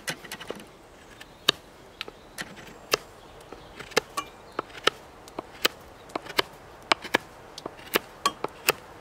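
Knife carving a point on the end of a wooden stick: a run of short, sharp cutting strokes, two or three a second at an uneven pace, each one shaving wood from the tip.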